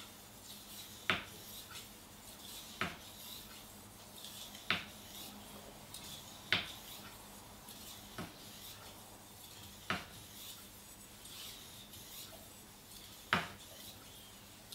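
Steel blade of a Global kitchen knife being stroked by hand along a sharpening stone: a gritty scrape with each pass, and seven sharp clicks, roughly one every two seconds.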